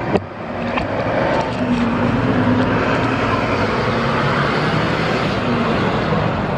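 Vehicle noise: a steady rushing that builds about a second in and holds, after a short click at the start.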